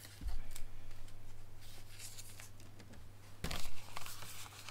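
Paper and cardstock being handled and rustled by hand, with a short knock just after the start and a louder rustle about three and a half seconds in.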